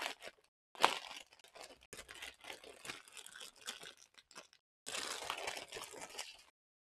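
Clear plastic packaging of bagged diamond-painting drills crinkling and rustling as it is pulled open and handled, in irregular sharp crackles with a longer, denser rustle about five seconds in.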